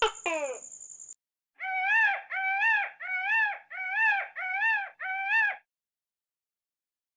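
Indian peafowl (peacock) calling six times in quick succession, each a loud wailing call that rises and falls. In the first second, before the calls, there is a steady high whine and two quick falling squeals.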